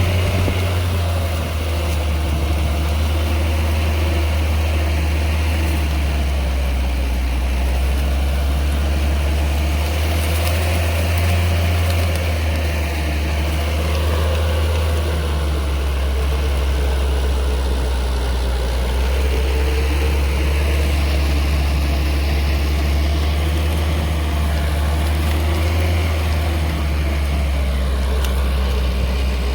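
Engine of a homemade rotary tiller running steadily with an even low drone.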